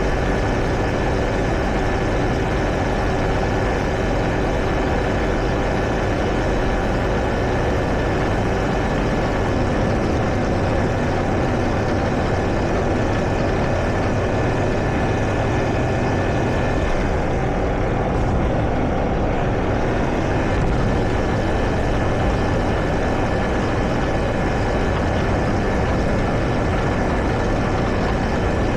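Heavy farm machinery engine running steadily: a constant, loud engine drone with a thin steady whine over it.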